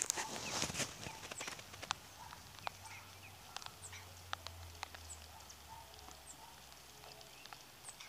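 Goats moving about and feeding: a rustle in the first second, then scattered light clicks and knocks like hooves and feed being shifted, with short high chirps throughout.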